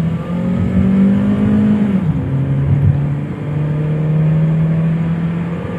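Honda Civic Reborn's 1.8-litre four-cylinder engine pulling hard under acceleration, heard from inside the cabin. The engine note rises, drops sharply as it shifts up about two seconds in, then climbs again as the car gathers speed.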